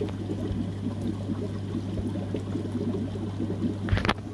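Aquarium water trickling and bubbling over a steady low hum. A short, louder noise comes near the end.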